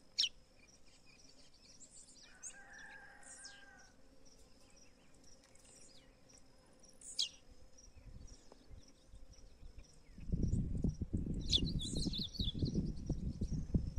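A few short, high bird chirps, sparse at first and clustered near the end, over a faint high ticking repeated about twice a second. From about ten seconds in, a rough low rumble on the microphone takes over as the loudest sound.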